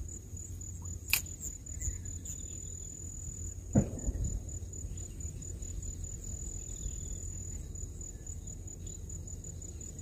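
A steady high-pitched insect trill runs on throughout, now and then broken into short pulses, over a low background rumble. A short knock comes about a second in, and a heavier thump, the loudest sound, just before four seconds in.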